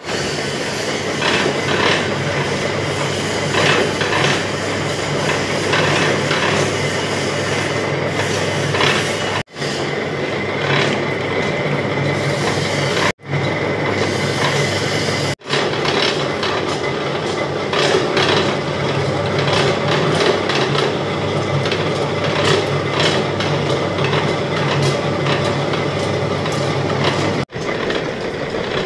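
Manual lathe running under power while a single-point tool cuts an external thread on a metal rod: a steady mechanical hum with frequent rapid ticking. The sound cuts out briefly four times.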